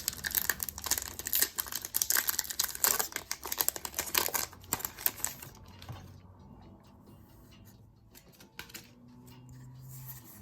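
Foil wrapper of a Pokémon trading card booster pack crinkling and being torn open, a dense rapid crackle that dies down about five and a half seconds in to quieter handling.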